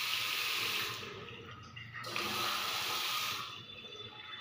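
Water running from a single-lever basin mixer tap into a ceramic washbasin. The flow eases about a second in, comes back strongly at two seconds, and is shut off near the end.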